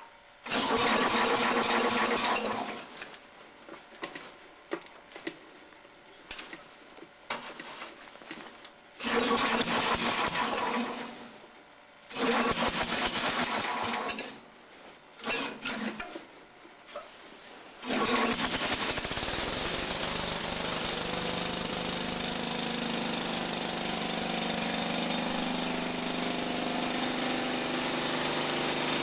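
A 1970 Sears Suburban 12 garden tractor's engine being cranked by its starter in several separate bursts, the engine not catching. About two-thirds of the way in it catches and settles into a steady run.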